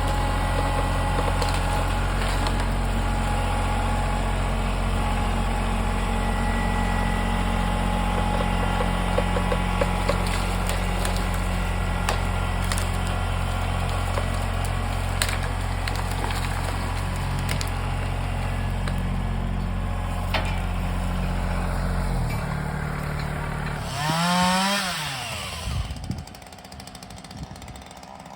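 An engine running steadily at constant speed for most of the time. About three-quarters of the way through its pitch drops slightly, then it revs up and falls back, and the sound becomes much quieter after that.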